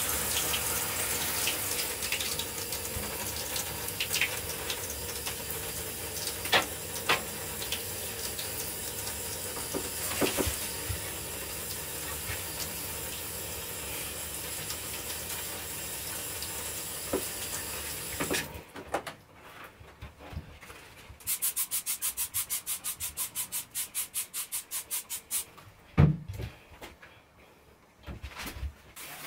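Handheld shower spraying water onto the bathtub and tiles, a steady rush that stops about two-thirds of the way in. A few seconds later come quick scrubbing strokes on the tiled wall, about four a second, followed by a single thump near the end.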